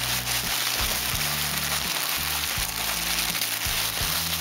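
Tissue paper rustling and crinkling as it is unwrapped by hand, over background music of sustained low notes that change every second or so.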